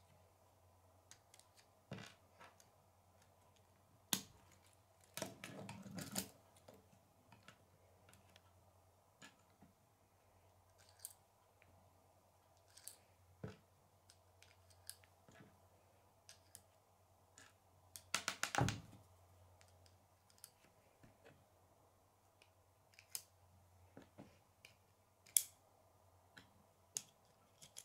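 Plastic K'nex rods, connectors and wheels being handled and snapped together: scattered sharp clicks and taps, with a longer rattle of clicks about five seconds in and another about two-thirds of the way through. A faint steady low hum runs underneath.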